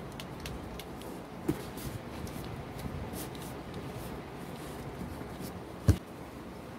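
Light rustling and crackling of a duct-tape-covered basket form being handled, with a small thump about a second and a half in and a louder dull thump near the end.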